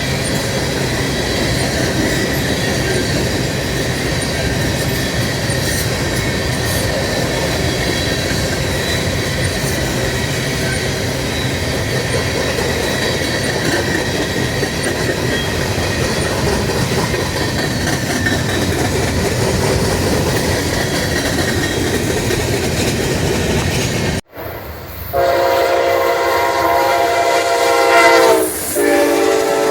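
A train rolling past with a steady rumble of wheels on rail. After an abrupt cut, a locomotive air horn sounds a chord in two blasts, with a short break between them near the end.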